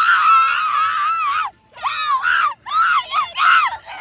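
A girl screaming in high-pitched shrieks: one long scream, a short break about a second and a half in, then a run of shorter screams.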